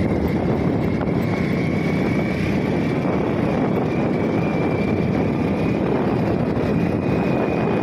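Steady rushing noise of wind over the microphone with a vehicle engine running, as from a vehicle keeping pace with a galloping horse; a thin, steady high whine runs over it from about a second in.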